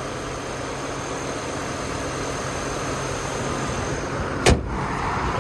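Car engine idling steadily, with one sharp click or knock about four and a half seconds in.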